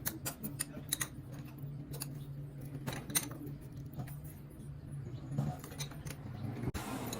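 Irregular light metallic clicks and clinks of hand tools and small parts being handled during motorcycle engine work, over a steady low hum. Near the end the sound changes abruptly to a broader hiss.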